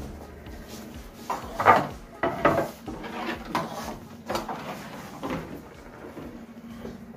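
Metal baking trays clattering and scraping as loaded sheets of bread are handled between a wood-fired oven and the bread racks, with irregular knocks, the loudest about two seconds in.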